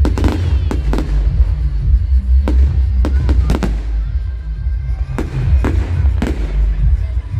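Fireworks going off: a string of sharp bangs and cracks at irregular intervals, over steady music.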